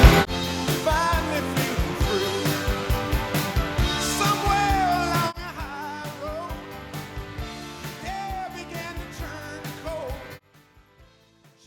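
Rock song with a singing voice over a steady beat. It drops in level about halfway through, then stops suddenly near the end.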